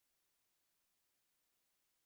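Near silence: faint steady hiss with a thin hum.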